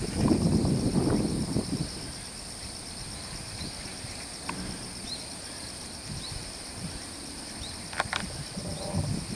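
A chorus of insects keeps up a steady, high-pitched, finely pulsing chirring at two pitches. A low rumble is louder than the insects for the first second and a half and comes back near the end, with a few faint short chirps and clicks in between.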